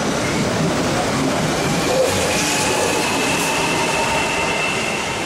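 CPTM electric commuter train running past at close range: steady rolling noise of wheels on rail, with a high whine that rises gently in pitch from about a second in.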